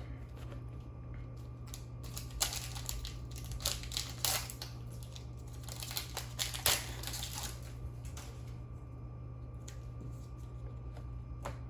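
Foil booster-pack wrapper crinkling and tearing open, with cards being handled, in scattered short rustles.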